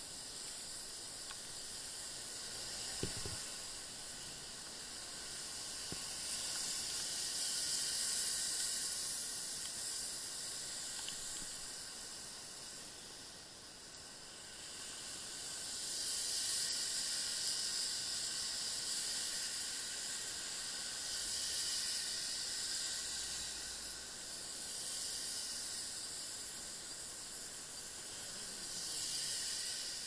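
Steady high hiss of tyres on a rain-soaked road together with rain, swelling and fading every few seconds.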